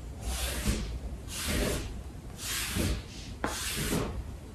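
A handheld clay rib drawn in repeated strokes across the surface of a freshly rolled clay slab, a rubbing, scraping sound about four times. It is smoothing the slab and compacting its surface skin.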